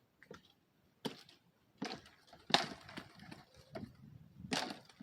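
Dead wood cracking and splintering in a series of sharp snaps, the loudest about two and a half seconds in.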